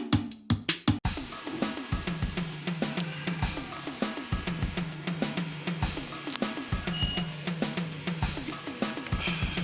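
Background music with a drum-kit beat and bass, which breaks off about a second in and then picks up again.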